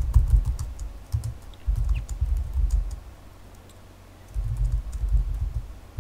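Computer keyboard typing in quick bursts of keystrokes, with a pause of about a second midway before a fresh run of keys.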